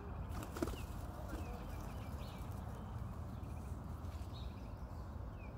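Outdoor park ambience: a steady low rumble with faint high chirps now and then, and a brief burst of clicks about half a second in.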